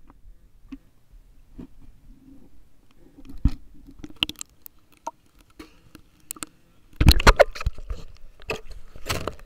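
Irregular knocks and rustles from an underwater camera moving through the water, with a cluster of louder knocks about seven seconds in.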